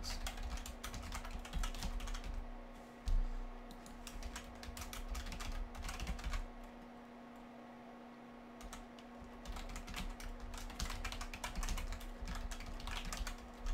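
Typing on a computer keyboard: runs of keystrokes with a pause of about three seconds in the middle, over a steady low hum.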